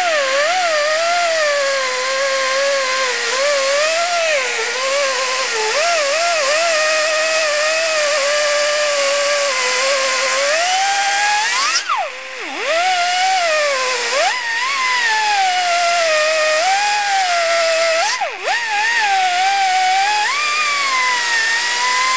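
Air-powered grinder with a small sanding disc cutting through a plastic core support: a steady high whine whose pitch keeps wavering up and down. In the second half it dips sharply and climbs back three times.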